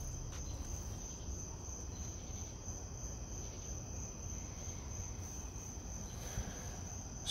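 Crickets chirping in a steady, unbroken high trill, over a faint low background rumble.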